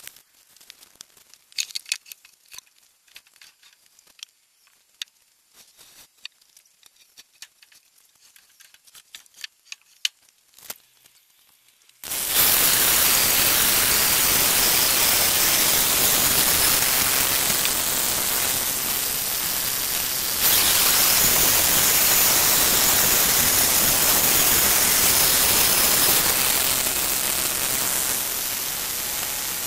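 Quiet for about twelve seconds with scattered faint clicks, then suddenly the loud, steady noise of an electric-motor bandsaw mill's blade cutting through a fresh linden log, stepping louder about eight seconds later.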